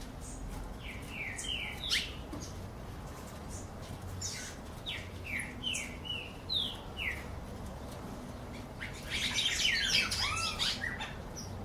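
Songbirds singing: two runs of short, quickly falling whistled notes, then near the end a louder, dense jumble of warbling notes.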